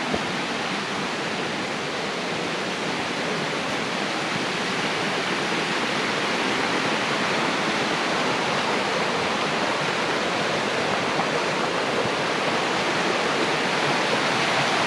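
Rushing water of a creek swollen by heavy rain, a steady full roar that grows gradually a little louder.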